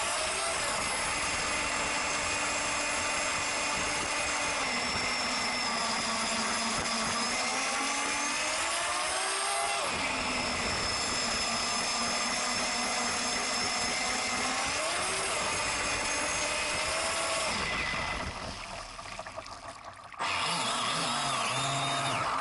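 Thunder Tiger Bandit RC boat's motor whining at high speed, its pitch falling and rising with the throttle. It fades near the end, and a different sound cuts in abruptly.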